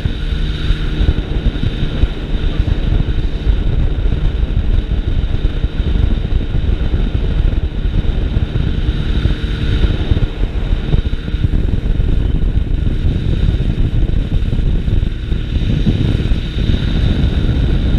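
Steady wind rush and engine drone in the open seat of a Dragonfly ultralight in flight, with heavy wind buffeting on the microphone.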